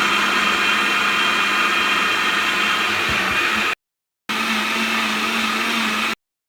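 Electric blender running, blending milk with banana and kiwi. It runs steadily, stops abruptly for about half a second in the middle, then runs again and cuts off just before the end.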